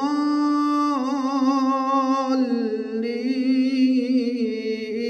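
A man's voice in melodic Quran recitation (tilawah), holding one long drawn-out note on the prolonged vowel of 'aḍ-ḍāllīn'. The held note wavers in ornaments from about a second in and steps to a new pitch a little past two seconds.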